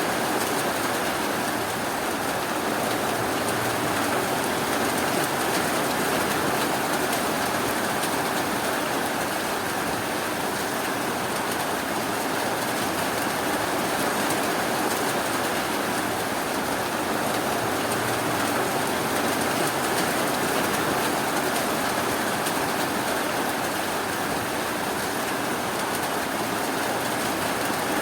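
Steady rainfall, an even, unbroken wash of noise with no thunder or single drips standing out.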